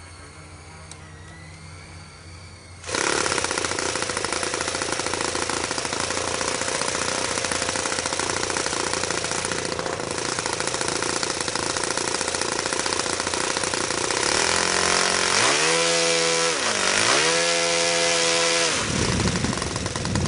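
Saito FA-82a single-cylinder four-stroke glow engine on a thrust test stand, running at a moderate level, then opened up abruptly about three seconds in to a loud, steady high-rpm run. Late on its pitch dips and climbs back up twice as the throttle is eased and reopened.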